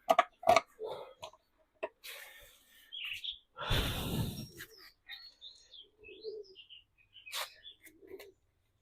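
Small birds chirping, mixed with sharp clicks and knocks of hand tools and parts being handled, and a louder scraping rustle about four seconds in.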